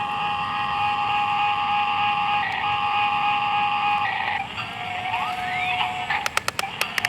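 Electronic buzzing tones: a steady buzz that breaks off briefly twice, then rising sweeps in pitch, and a quick run of sharp clicks near the end.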